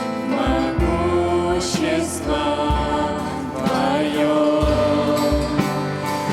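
Music of a worship song, with a melody line over steady low bass notes.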